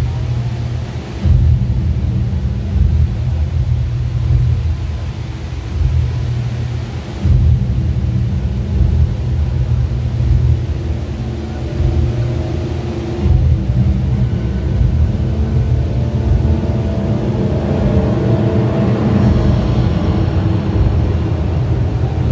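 Deep, steady rumble of the Rain Vortex indoor waterfall pouring into its pool, with the light show's music over it; the melody comes forward about halfway through.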